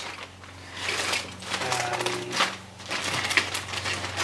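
Clear polythene kit bag crinkling and rustling in irregular swells as plastic model-kit sprues are slid out of it.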